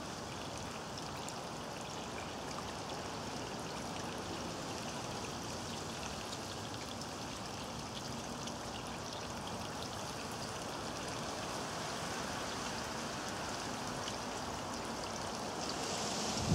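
Steady sound of running water trickling in a garden fish pond.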